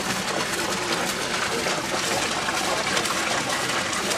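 Steady rush of water spraying inside the clear plastic housing of a small micro-hydro turbine, its jets striking the bucket wheel.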